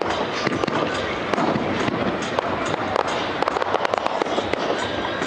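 Fireworks display: aerial shells bursting overhead with dense, rapid crackling and popping.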